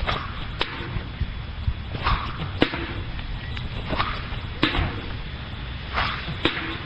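Four swishes through the air, each ending about half a second later in a sharp crack, coming about every two seconds.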